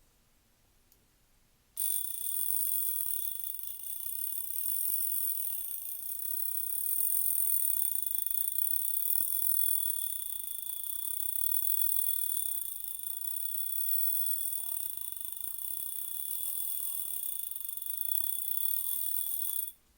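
The mechanical alarm of a 1930s Junghans pocket-watch movement, now worn as a wristwatch, going off as a high, steady ringing. It starts suddenly about two seconds in and cuts off abruptly just before the end.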